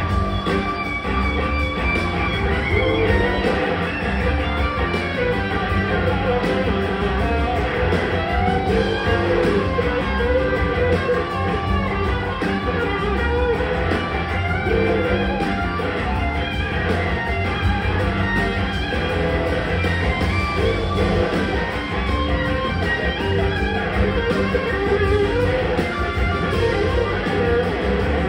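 Live rock band playing an instrumental passage: electric guitar carrying the lead in wavering, gliding notes over drums, bass and organ.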